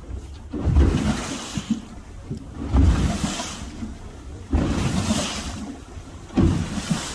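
Wind and water noise on a moving boat: a deep rushing buffet that surges about every two seconds, as the boat rides the waves.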